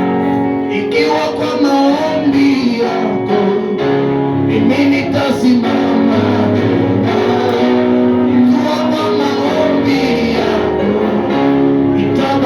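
Live church worship music: guitar-led band playing steady sustained chords with a bass line, with singing.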